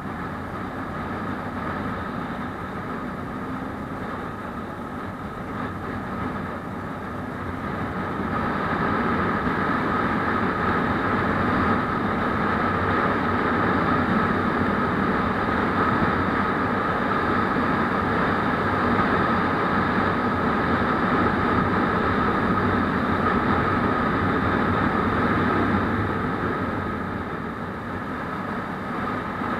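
Motorcycle running along at road speed, engine steady under a rush of wind on the bike-mounted camera. It gets louder about eight seconds in and eases off briefly near the end.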